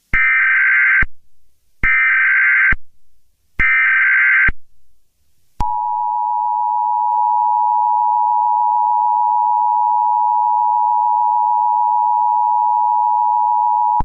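Emergency Alert System tones: three short bursts of the SAME digital header, each about a second long, then the two-tone attention signal, which starts about five and a half seconds in and holds steady.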